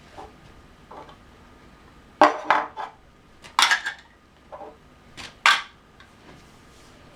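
Hard toy shape pieces knocking and clattering together in a few quick bursts, as when they are gathered up and dropped into a bag. The clatter runs between about two and six seconds in.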